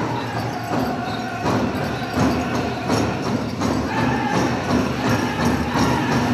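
Powwow drum group singing a Grand Entry song over a steady big-drum beat, which grows louder about a second and a half in, with the metal cones of jingle dresses jingling as the dancers pass.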